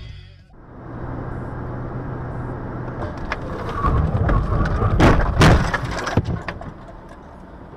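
Car crash: two loud bangs of impact about half a second apart, with crunching, over steady road and engine noise from a car.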